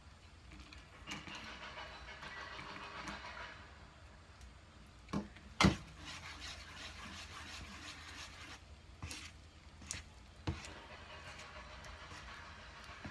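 Cooking handling sounds: a soft hiss for the first few seconds, then several sharp knocks of utensils or containers, the loudest about six seconds in.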